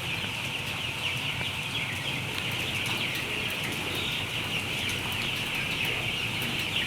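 Flock of broiler chickens calling, many overlapping calls merging into a dense, steady chatter.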